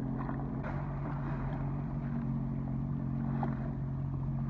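Sea-Doo Fish Pro jet ski engine idling with a steady low hum that holds an even pitch.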